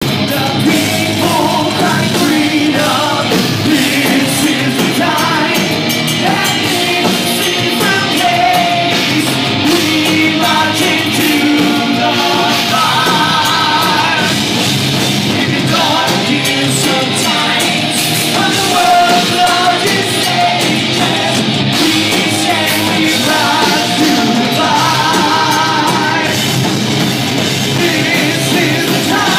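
Heavy metal band playing live: sung lead vocals, with held notes wavering in vibrato, over electric guitar and a full drum kit. Loud and continuous.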